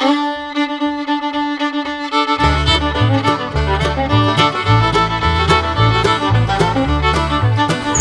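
Intro music in a bluegrass style led by fiddle; a bass line and beat join about two and a half seconds in.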